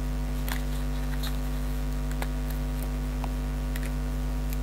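Steady electrical mains hum, with a few faint light clicks of a die-cut card sheet being handled.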